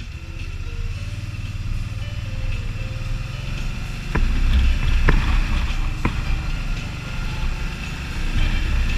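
Can-Am Spyder ST Limited's V-twin engine running under way, with road and wind noise. It gets louder about four seconds in, and there are three short sharp clicks soon after.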